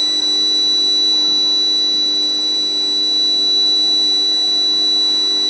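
Induction heating furnace running on steel plate: a steady, high-pitched electrical whine made of several held tones, with a lower steady hum beneath.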